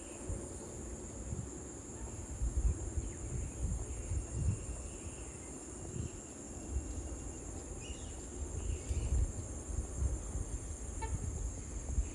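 A chorus of insects giving a steady, high-pitched drone, over a low, gusty rumble of wind on the microphone.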